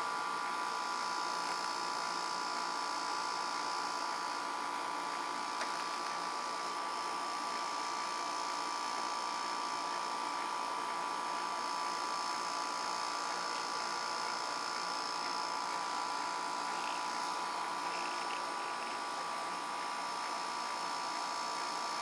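Portable air conditioner's compressor running, a steady hum with several steady whining tones, while the system is being charged with R-410A refrigerant.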